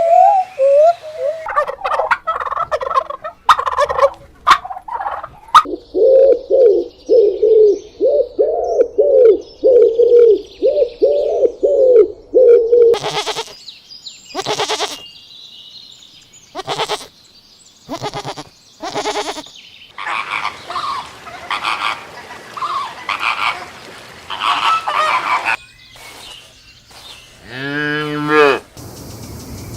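A string of farm-bird and animal calls in short separate clips. In the middle, domestic fowl call about a dozen times in a quick, even row, followed by harsher, noisier calls and a single drawn-out pitched call near the end.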